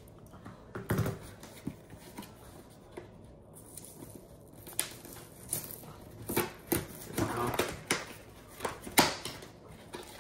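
Handling a cardboard phone box: scattered taps, knocks and rustles as it is turned over and handled, with a sharp knock about a second in, a run of rustling and clicks near the end and the loudest knock about nine seconds in.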